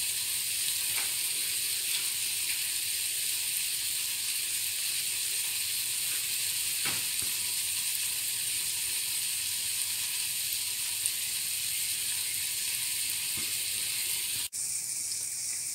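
Egg-soaked bread for French toast sizzling steadily in desi ghee in a frying pan on a low flame, with a few faint clicks. The sizzle cuts out for a moment near the end.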